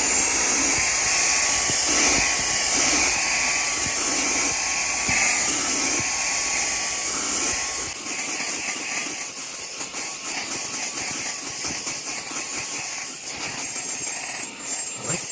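SEALIGHT cordless mini handheld vacuum running in vacuum mode: its small high-speed motor gives a steady high-pitched whine over rushing, hissing air, settling at full speed in the first second.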